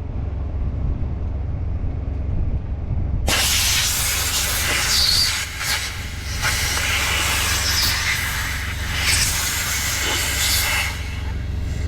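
Compressed air hissing loudly through the truck's air suspension as the system is aired up around the newly fitted steer-axle air bag. The hiss starts abruptly about three seconds in, wavers a few times and stops near the end, over a low steady rumble.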